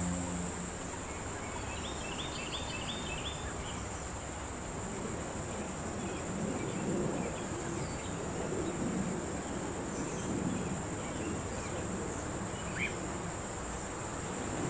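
Insects trilling steadily at a high pitch, with a short run of quick bird chirps about two seconds in.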